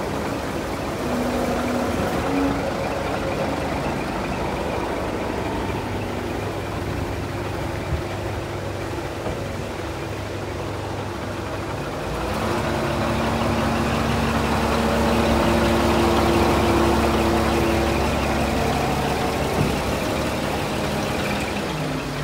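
A 2008 Scania P380 tipper truck's diesel engine running at idle. About twelve seconds in, the engine speed rises and holds steady while the tipper body is raised on its hydraulic ram, then drops back near the end.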